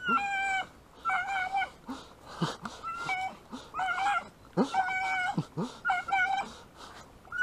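Jagdterrier whining in high, short, repeated cries, roughly one a second, while swimming after a wounded duck.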